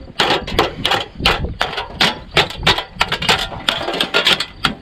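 Rapid, repeated strikes of a brick on the spine of a Victorinox Forester pocketknife blade, batoning it through aluminium, about four blows a second.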